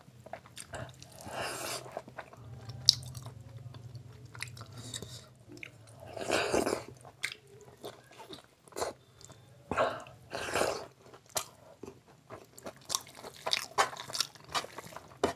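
A person eating rice and curry with their hand: close, wet chewing and smacking in irregular bursts, with sharp clicks and crunches between them.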